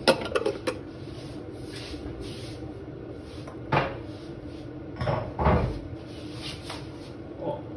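Kitchen clatter of things being handled and put away: a few light clicks at the start, a sharp knock about four seconds in and two more knocks a second later, over a steady low hum.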